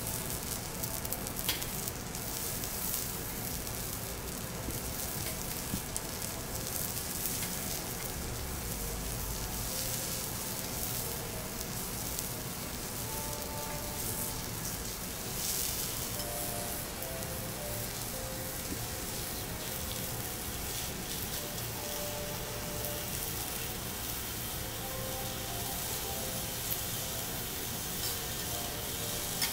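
Striploin steak sizzling steadily on a hot teppanyaki iron griddle as it is sliced, with a few light clicks of knife and fork against the steel.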